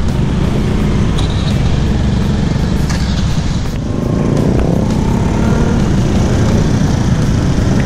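Motorcycle engine running while riding in city traffic, with a steady low rumble from the engine and the road.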